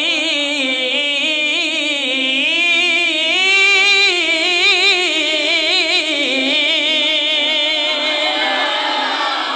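A man's unaccompanied voice singing one long, unbroken melismatic phrase with a wide, steady vibrato. It fades out shortly before the end.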